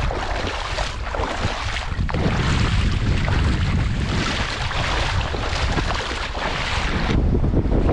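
Wind buffeting the microphone with a heavy rumble, over small waves washing against a stony shoreline in surges of hiss. The hiss thins out about seven seconds in while the wind rumble carries on.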